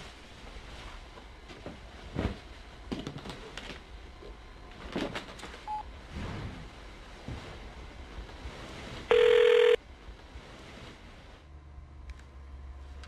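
A single electronic telephone beep, a steady tone lasting just over half a second about nine seconds in, which is the loudest sound here. Before it there are scattered soft knocks and rustles of handling, and a low steady hum follows.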